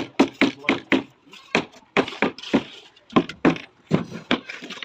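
A hand tool striking hard over and over during building work, about four quick knocks a second, with a brief scraping noise about two seconds in.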